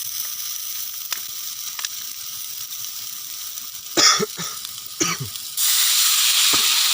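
Chili frying in margarine in a pan, sizzling steadily, with a couple of clatters about four and five seconds in. About five and a half seconds in, the sizzle jumps to a much louder, wider hiss as water is poured into the hot pan.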